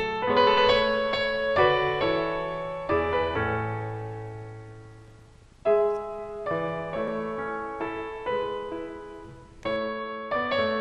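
Background piano music: struck notes and chords that ring and die away, fading almost out about five seconds in before new chords begin.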